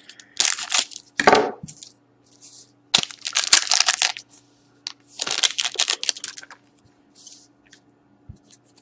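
Scissors cutting open a foil Panini Totally Certified hockey-card pack, then the foil wrapper crinkling in several short bursts as it is handled and opened.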